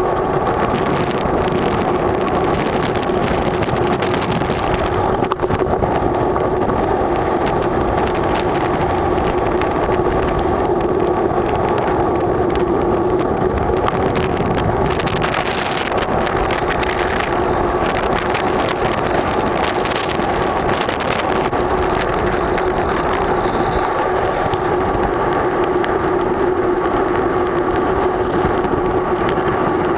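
Tropical storm wind blowing hard, a steady loud roar with a constant low hum and a higher steady tone running through it.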